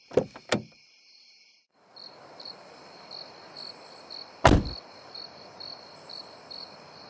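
Taxi door: two sharp clicks, then a single loud thud as the door is slammed shut about four and a half seconds in. Crickets chirp steadily about twice a second from about two seconds in.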